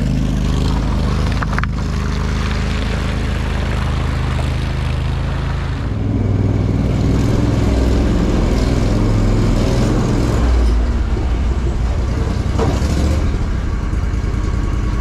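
Engine of a tracked Argo amphibious ATV running steadily. About six seconds in, the sound turns deeper and fuller as it is heard inside an enclosed trailer.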